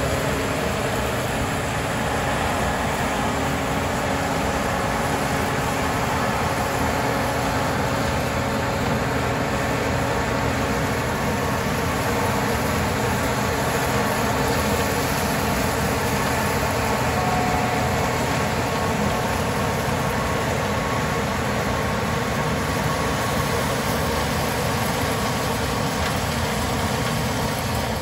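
Tractor engine running steadily, heard from inside the cab.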